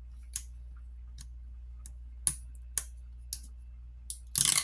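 Scattered light clicks and taps of fingers and tools on the small parts of an opened smartphone, at irregular intervals, over a faint steady low hum. Near the end comes a short, louder scraping rustle.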